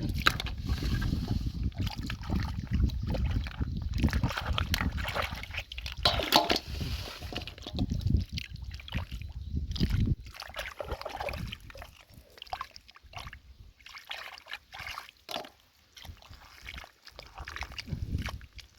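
Hands working in wet mud and shallow water, sloshing, squelching and splashing while digging for clams. It is busy and loud for about ten seconds, then quieter, with scattered wet sounds.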